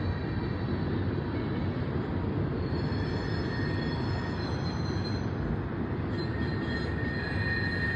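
Loaded CSX coal train's cars rolling past, a steady rumble of wheels on rail with thin, high wheel squeal that grows louder near the end.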